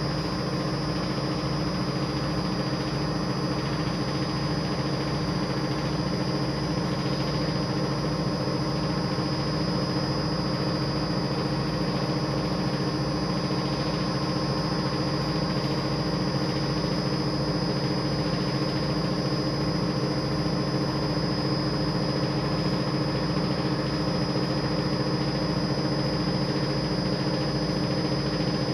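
A machine running steadily: an even low hum with a fast flutter and a thin, high steady whine over it.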